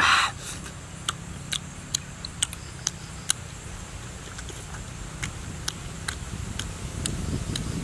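A person chewing grilled stingray with lip smacks: a string of short, sharp wet clicks at irregular intervals, with a brief louder hiss of breath right at the start.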